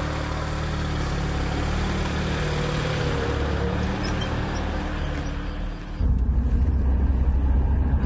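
A car engine running as the sedan pulls away and drives past. About six seconds in, the sound changes to a steady, heavier low rumble of engine and road noise heard inside the moving car's cabin.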